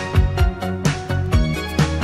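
1980s new wave song playing, with a steady drum beat under layered pitched instruments.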